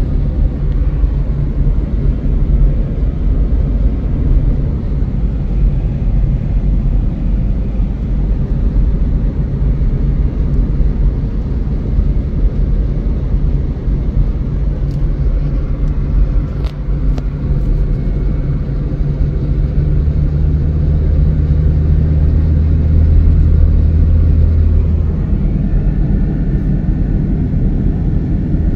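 Road and engine noise inside a moving car: a steady low rumble, with a deeper engine hum that grows stronger about twenty seconds in and eases off some five seconds later.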